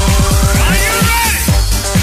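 Electronic dance music with a fast beat of deep, falling bass notes and a synth sweep that rises in pitch during the first second.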